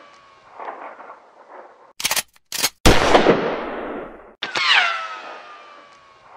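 Edited gunfire sound effects: a quick burst of three shots, then a loud blast with a long fading tail, and near the end a sharp hit with a ringing tone that falls in pitch.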